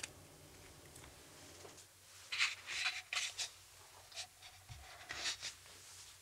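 Short bursts of scraping and rubbing on a wooden cutting board, a cluster about two seconds in and another about five seconds in.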